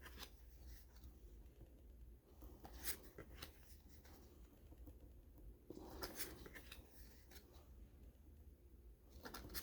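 Faint rustling and soft clicks of paper baseball cards being handled and flipped through, a few brief scrapes spread across otherwise near-silent room tone.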